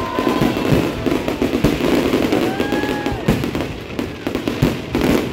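Fireworks display: a dense run of bangs and crackling, with a few whistles that rise and fall over about a second.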